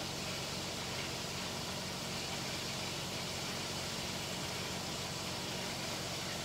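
Steady low hum under an even hiss, unchanging throughout: background room noise.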